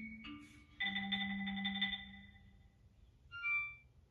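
Background cartoon music: a run of quick struck notes, then a held chord that fades over about a second, and a short bright tone a little past three seconds in.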